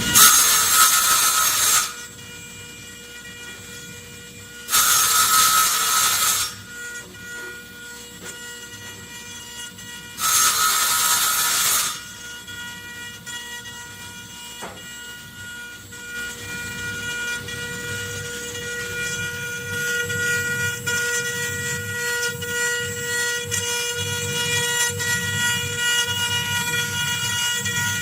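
CNC wood-carving router running, with a steady multi-tone whine throughout. There are three loud bursts of hiss of a couple of seconds each: one at the start, one about five seconds in and one about ten seconds in. A low rumble grows in the second half.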